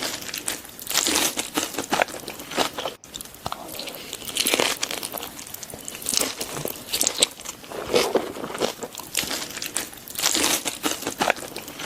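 A person chewing and crunching food close to the microphone, in irregular clusters of crisp, crackly bites.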